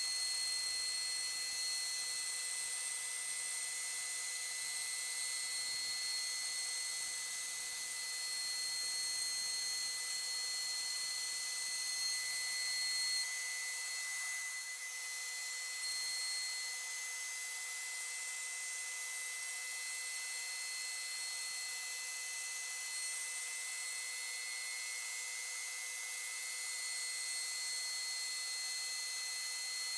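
Sped-up time-lapse sound of a CNC router spindle milling a board while a shop vacuum runs, turned into a steady high-pitched whistle of several held tones over a hiss. The low rumble under it cuts off suddenly about 13 seconds in.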